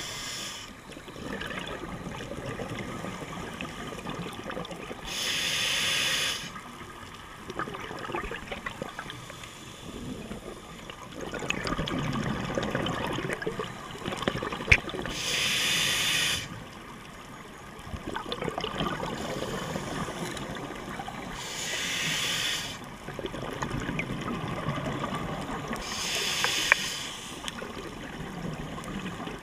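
A scuba diver breathing through a regulator underwater: four hissing breaths, each about a second long, with gurgling rumbles of exhaled bubbles between them. There are also a couple of sharp clicks.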